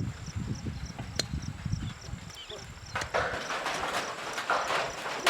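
Scuffing steps in a ploughed field, coming at an even pace in the second half, after low rumbling in the first two seconds.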